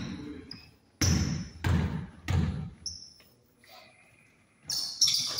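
A basketball being dribbled on a gym floor, about four bounces roughly two-thirds of a second apart, with short high squeaks of sneakers on the court around the middle and near the end.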